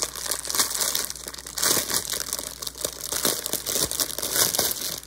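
Clear plastic wrap around a bundle of diamond-painting drill bags crinkling continuously and irregularly as hands squeeze and rub it.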